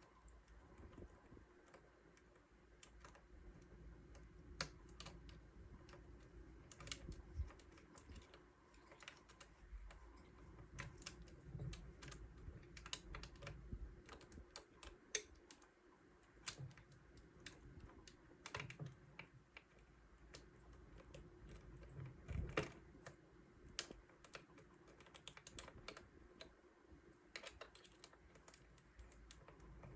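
Faint, irregular clicks and light scrapes of a lock pick working the wafers of a Sparrows Flynn arcade lock held under a tension wrench.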